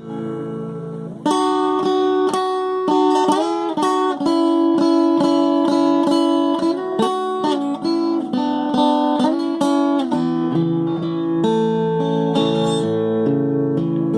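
Instrumental introduction of a Brazilian caipira song: a viola caipira picks a quick melody with a few sliding notes over chords. A held chord opens it before the picking starts about a second in, and fuller held accompaniment comes in over the last few seconds.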